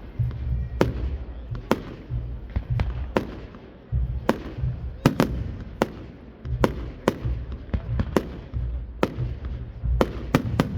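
Fireworks going off: an irregular run of sharp bangs, sometimes two in quick succession, over a continuous low rumble of booming bursts.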